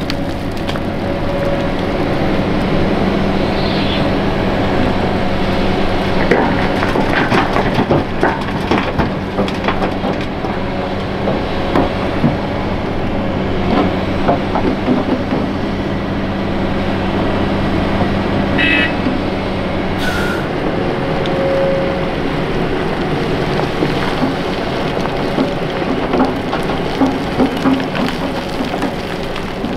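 Hitachi Zaxis 470 LCH excavator's diesel engine running under load while it digs and loads dirt, with repeated knocks and rattles of soil and stones. The engine note changes about twenty seconds in, and there is a brief squeal shortly before.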